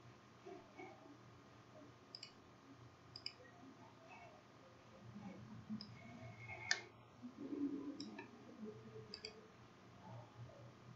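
Computer mouse clicking: a handful of short, sharp clicks at irregular intervals, the loudest about two-thirds of the way through, over a faint steady hum.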